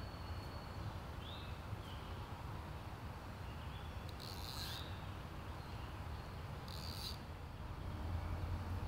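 Woodland ambience: short buzzy high calls from an unseen animal repeat about every two and a half seconds, over a steady low background rush. A single brief chirp comes about a second and a half in.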